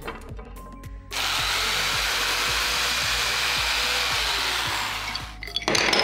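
Electric drill running steadily for about four seconds, likely boring into wood, its whine dropping in pitch as it slows near the end, followed by a short, louder burst of noise. Background music with a steady beat plays throughout.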